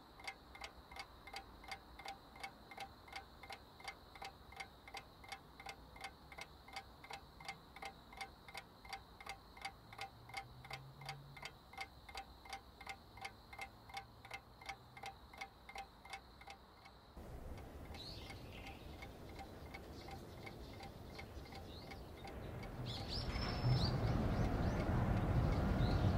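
A clock ticking evenly, about two ticks a second, each tick with a slight ring; the ticking cuts off suddenly about two-thirds of the way through. A steady rushing noise follows and grows louder near the end, with a low hum and a few brief high chirps.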